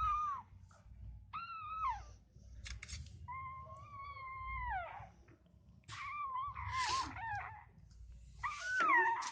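Newborn pitbull puppies crying with high-pitched squeals and whines, about five separate cries. One long cry in the middle trails down in pitch, and the loudest, wavering cry comes near the end.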